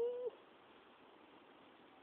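A domestic cat meowing once, a steady, even-pitched meow that ends about a quarter second in.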